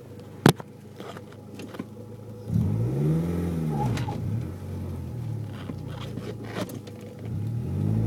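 Car engine idling, a sharp click about half a second in, then the engine revs rise and fall twice as the car pulls away from a stop with the clutch being let out. The clutch is a newly installed Stage 4 Competition Clutch, which the owner suspects of making a squeaking noise as it engages.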